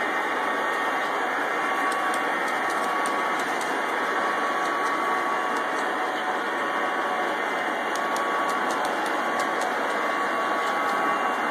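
G scale model trains running on their track: a steady whirring rumble of the electric locomotives and the wheels rolling on the rails, with faint ticks scattered through it.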